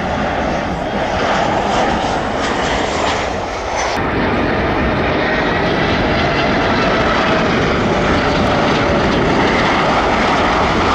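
Jet airliner engines running loud and steady, with a faint high whine over the rushing noise. The sound shifts abruptly about four seconds in.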